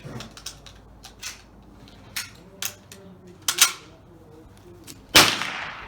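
A gunshot about five seconds in, with a long echo fading after it. Before it come several sharp clicks and knocks.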